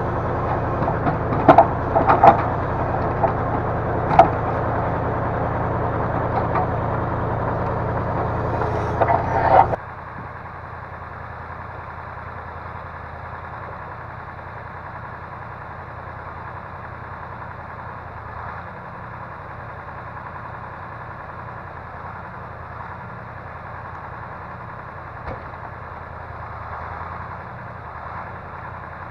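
Engine of a log loader crane running steadily, with several sharp knocks and clanks over the first third. Just under ten seconds in the sound drops suddenly to a quieter, even engine hum.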